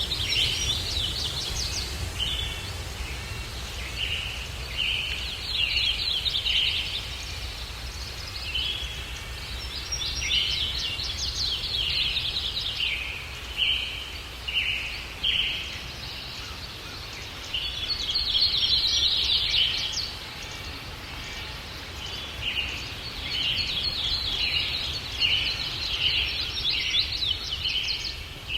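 Songbirds chirping and singing in bursts of quick, repeated high notes, some as short separate phrases and some as denser flurries, over a steady low rumble of breeze.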